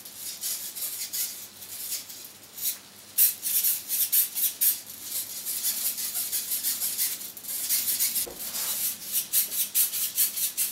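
Close rustling and scraping in quick, irregular strokes, like things being handled or rubbed near the microphone, getting louder about three seconds in.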